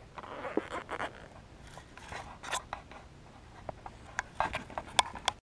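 Close handling noise: an irregular string of small clicks, taps and short scrapes from fishing gear being handled right next to the microphone, the sharpest clicks near the end.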